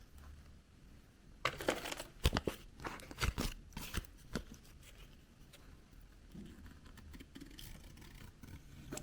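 A surprise egg's wrapper being torn and crinkled open by hand. There is a quick run of sharp crackles in the first half, then softer rustling.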